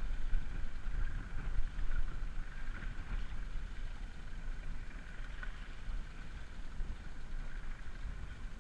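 Small outboard motor idling on a rigid inflatable boat: a steady low rumble with a faint, even whine above it, and wind on the microphone.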